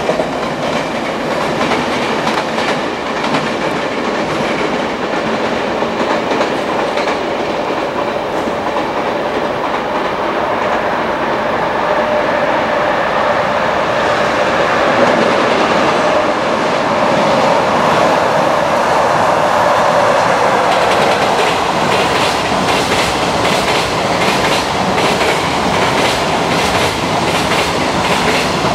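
Freight trains rolling past on elevated slab track, with a steady rumble of wheels on rail. From about three-quarters of the way in, the wheels clack over the slab-track rail joints in a fast, even rhythm.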